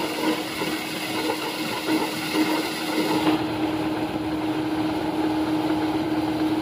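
Combine harvester and John Deere tractor engines running steadily at a constant pitch. A hiss that sits over the engines drops away about three seconds in.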